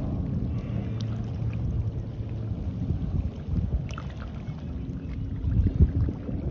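Seaside ambience: wind buffeting the microphone over the wash of the sea, with a motorboat engine droning steadily underneath.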